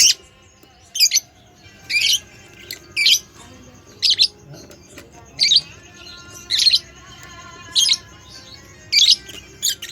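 Budgerigar calling with short, sharp, high chirps, about one a second, some ten in all.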